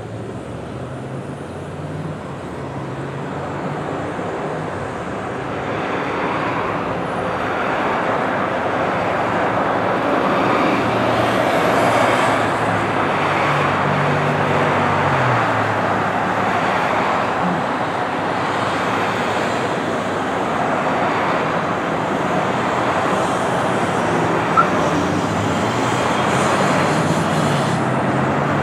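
Boeing 737-700 airliner on final approach, its twin CFM56 turbofan engines a steady jet rumble that grows louder over the first several seconds as the plane nears, then holds.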